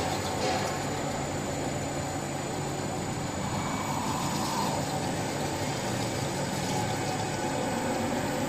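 Three-axis CNC drilling and facing machine running with a steady mechanical hum and a thin, constant high whine.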